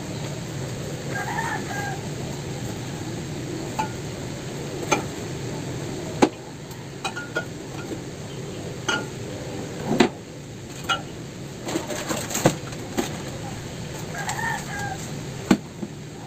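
Packets and cans knock and click as they are set onto store shelves, about a dozen sharp knocks over a steady low hum. A chicken calls twice, once near the start and once near the end.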